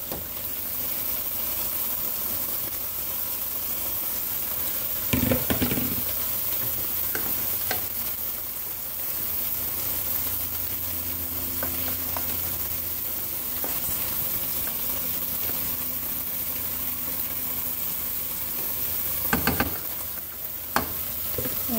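Rice cooking in a pot with a steady hiss while a wooden spoon stirs it, with a couple of knocks against the pot about five seconds in and near the end.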